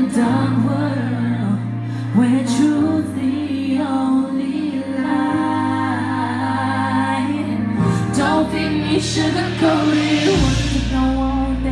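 Live R&B performance: a female singer singing into a handheld microphone over a slow backing track with long held bass notes that shift pitch every few seconds.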